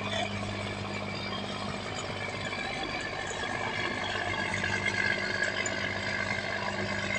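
Diesel engine of a passing river cargo barge running with a steady low hum, over the rush of water along its hull that grows louder in the second half.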